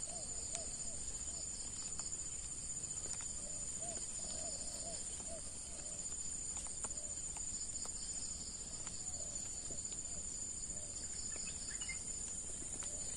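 Steady high-pitched drone of insects, with a second, pulsing insect band beneath it. Clusters of short, low arched calls come and go over it, along with a few faint clicks.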